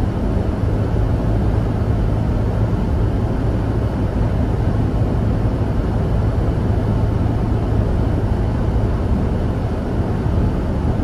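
Steady car interior noise while driving: a low engine and road hum with even tyre and wind noise over it.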